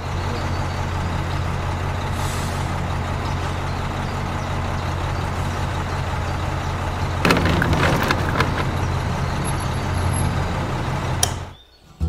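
Small electric motor of a miniature DIY concrete mixer running steadily with a low hum and rattle as its drum turns the wet cement mix. The rattling grows louder for about a second past the middle, and the motor stops with a click near the end.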